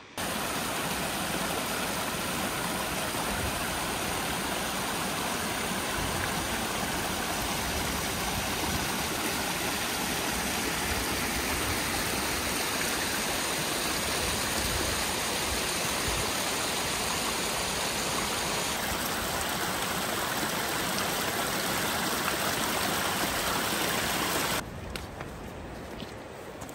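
Steady rushing of a mountain stream's water, even and unbroken, dropping away to a much quieter background with a few faint clicks about two seconds before the end.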